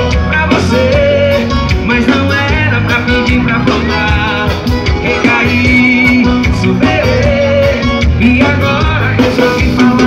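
Live band music played loud through a stage PA: drums and electric guitar with a male voice singing into a microphone.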